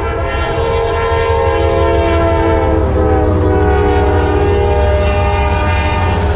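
A Norfolk Southern diesel freight locomotive's horn held in one long chord over the low rumble of the passing train. The horn's pitch drops a little about three seconds in.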